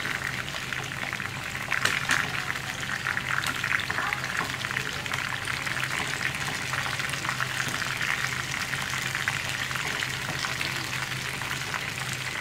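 Marinated chicken 65 pieces deep-frying in a pot of hot oil: a steady, dense crackle and sizzle, with a few louder pops or clicks about two seconds in. The first side is done and the pieces have just been turned over.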